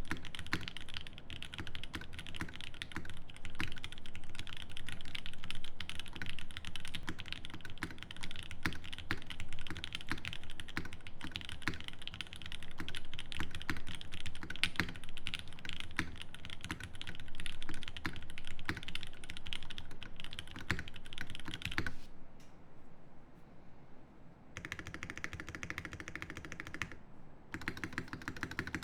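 Fast typing on a Think 6.5 V2 mechanical keyboard with lubed Dogikon linear switches on an FR4 plate and GMK Hennessy keycaps: a dense stream of keystrokes. The typing pauses for about two seconds about three-quarters of the way through, then picks up again.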